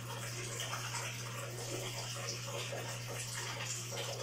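Aquarium filter returning water into a turtle tank, a steady trickling splash of running water, with a low steady hum underneath.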